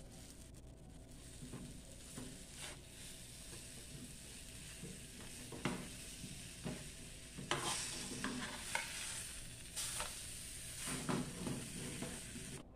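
Tapioca crepe cooking in a nonstick frying pan on a gas burner, giving a faint steady sizzle. In the second half a metal spoon scrapes and knocks against the pan several times as the crepe is folded.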